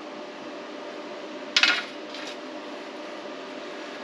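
Steel kit parts clinking against each other, one sharp metallic clink about one and a half seconds in and a fainter one just after, over a steady low shop hum.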